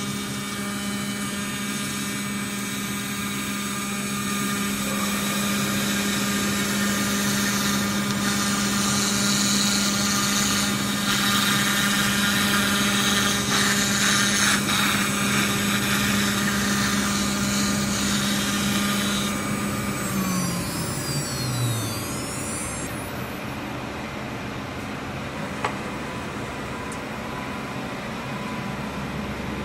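Water-cooled CNC router spindle milling aluminium sheet: a steady hum with the harsh, high cutting noise of the end mill. About 19 seconds in the cutting stops and the spindle winds down, its pitch falling over a few seconds, leaving a quieter steady machine hum.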